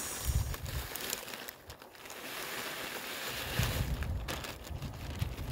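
Potting soil pouring from a plastic bag into a plastic planter, the bag crinkling as it is emptied, with gusts of wind rumbling on the microphone.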